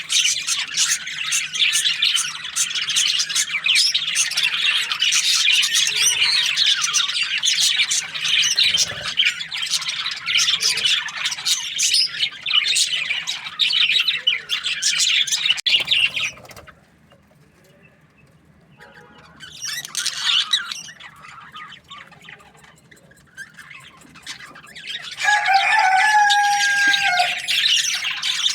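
A flock of budgerigars chirping and chattering densely and continuously, which cuts off suddenly about two-thirds of the way in. After a brief burst of chirping, a single longer call is held on a steady pitch for about two seconds near the end.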